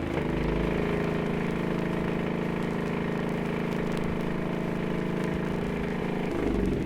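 A steady mechanical drone at one constant pitch, like an engine running at an even speed. About six seconds in it gives way to a lower rumbling sound.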